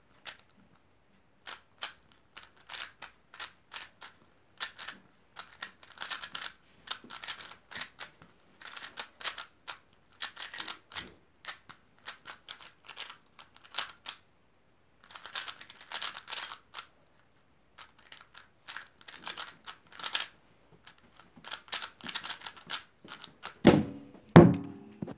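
Rapid clicking and clacking of a MoYu WeiLong GTS 3x3 speedcube's layers being turned fast in a timed solve, in bursts with short pauses between them. Near the end come two louder thumps as the cube is put down and the hands slap the timer's pads to stop it.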